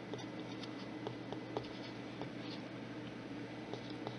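Faint scattered light clicks and soft scratching over a steady low room hum.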